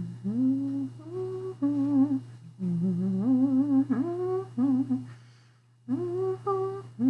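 A woman humming a tune, a string of held notes with small slides between them and a short pause about five seconds in.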